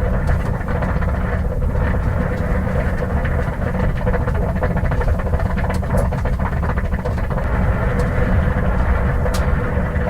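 1950 Ford six-cylinder flathead inline-six engine idling steadily while overheating, with scattered faint ticks over the low, even running sound.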